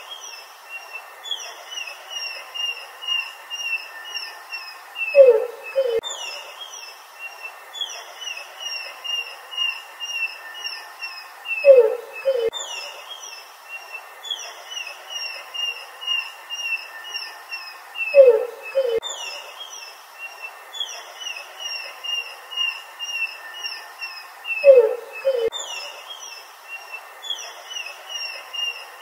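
A looped track of animal-like calls. About every six and a half seconds comes a loud pair of short, falling low notes, followed by runs of quick, high chirps.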